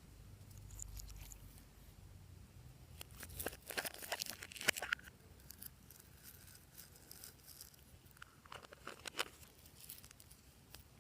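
Glossy slime being worked by hand, giving bursts of sticky crackling and popping: a longer burst a few seconds in and a shorter one later.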